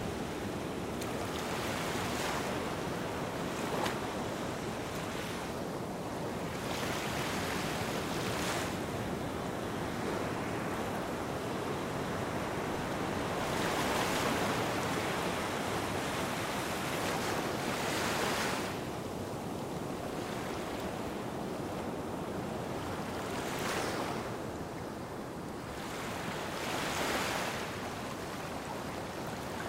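Gentle sea waves washing onto a sandy beach: a soft swell of surf every few seconds over a steady hiss of water.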